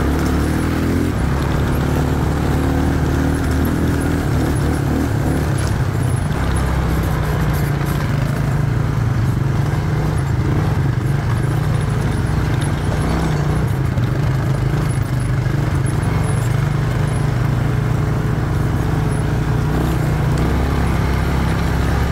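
Quad bike engine running steadily while riding along a dirt trail, a low even drone throughout.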